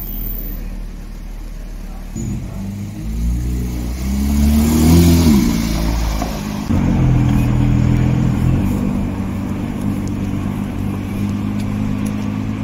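Porsche 911 GT3's flat-six running and briefly revving up and falling back about five seconds in as it drives past. After a cut, a Ford GT's engine runs steadily as it moves off slowly in traffic.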